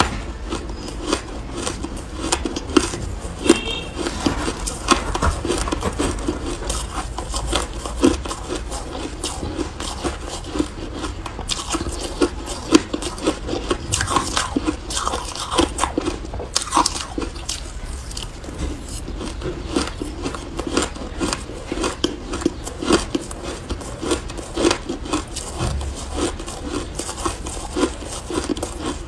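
Shaved and crushed ice being bitten and chewed, a dense, continuous run of small crisp crunches.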